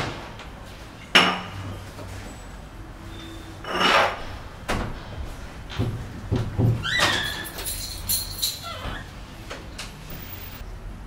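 A wooden door being handled and shut: a sharp knock about a second in, several softer thumps, and a squeaking hinge as the door swings closed.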